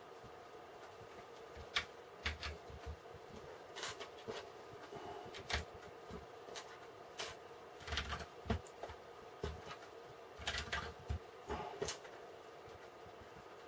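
BlueBrixx plastic building bricks being handled and pressed together: irregular faint clicks, taps and rattles, with a cluster of sharper clicks past the middle, over a faint steady hum.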